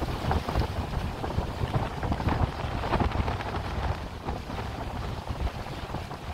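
Wind buffeting the microphone in uneven gusts over a steady rush of choppy sea water from a moving boat.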